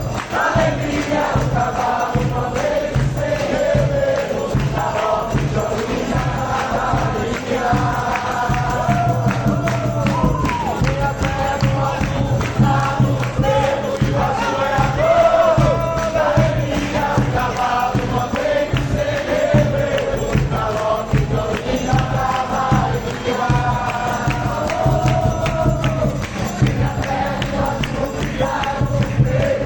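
A live band plays a song with a steady percussion beat and bass, while a group of people sings the melody together.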